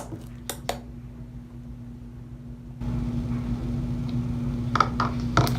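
A steady low background hum that grows louder about three seconds in, with a few light clicks and taps near the start and again near the end.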